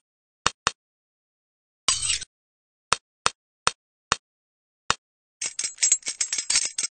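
A series of separate sharp clicks or taps with dead silence between them, a short hissing burst about two seconds in, then a quick clattering run of many clicks near the end.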